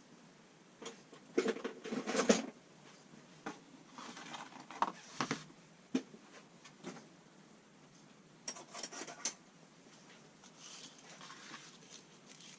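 Hand tools being handled and set down on a hard surface: scattered knocks and clicks, the loudest in a cluster about two seconds in.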